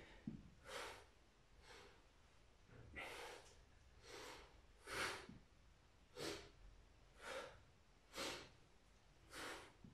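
A man's faint, sharp exhalations, nine in all at about one a second, each a short breathy puff; this is exertion breathing timed to the reps of knee-to-elbow crunches.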